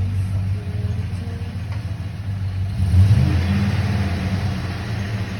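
Chevrolet Silverado engine running, briefly revved about three seconds in, while the freshly rebuilt 4L60E transmission fails to take drive in gear: the transmission pump is not getting fluid.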